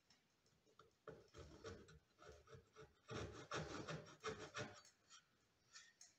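Hand backsaw cutting into a wooden board: a run of short rasping strokes that starts about a second in, is loudest in the middle and stops about five seconds in.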